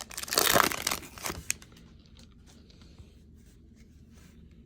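A trading card pack's wrapper being torn open and crinkled for about a second, with a short second tear just after, then faint handling clicks.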